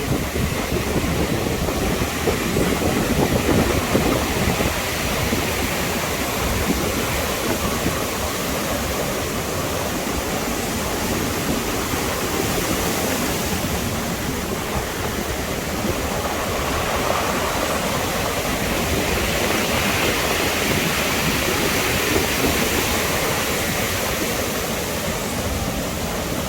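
Caribbean Sea surf washing on the shore: a steady rushing noise that swells and eases slowly over several seconds.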